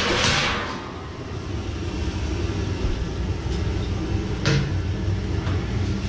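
Sheet-metal boiler cover panel scraping as it is lifted off a concrete floor, then a single clank about four and a half seconds in as it is handled, over a steady low mechanical hum.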